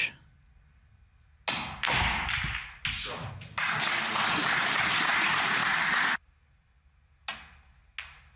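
Snooker balls struck by the cue and clicking and knocking together, in a few sharp knocks, with two short clicks near the end. In the middle a steady hiss runs for about two and a half seconds and stops suddenly.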